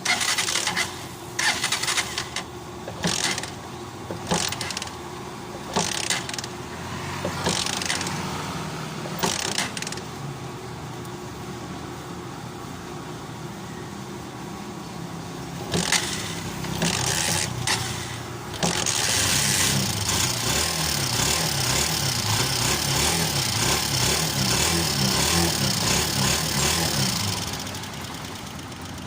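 Honda TMX125 Alpha's single-cylinder four-stroke engine running after a top overhaul: the throttle is blipped repeatedly over idle, then it settles to a steady idle. A few more blips follow, then a held rev for about nine seconds before it drops back to idle.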